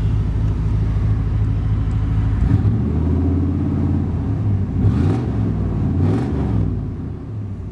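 1991 Chevrolet Silverado's 5.7-litre V8 running at idle, then revved several times from about two and a half seconds in before settling back toward idle. Heard from inside the cab, with a note described as very muscular.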